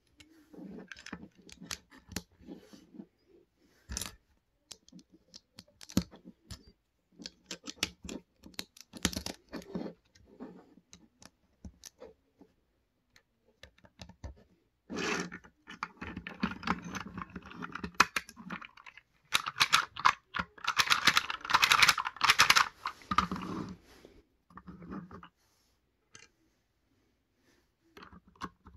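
LEGO bricks and plastic parts clicking, tapping and rattling as hands fit and handle them. The clicks are scattered at first, turn into a dense, louder rattle for a few seconds around the middle, and die away near the end.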